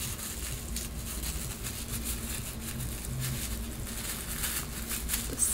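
Tissue paper wrapping crinkling and rustling as a small wrapped gift is unwrapped by hand: a run of quick, soft crackles.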